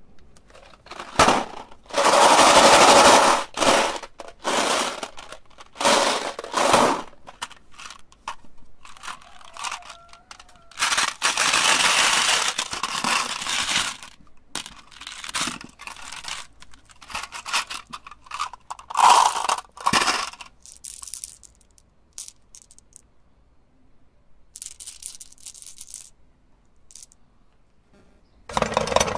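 Glass marbles clattering and rattling in clear plastic boxes as they are handled, in bursts of a second or more with sharp clicks. About 28 seconds in, a steady machine hum starts.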